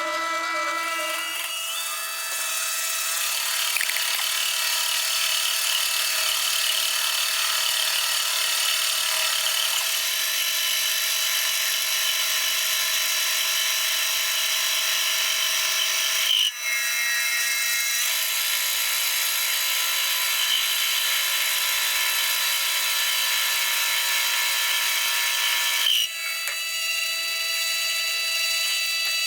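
An electric power tool running steadily, a whine over a hiss, with a short break about halfway through and another near the end.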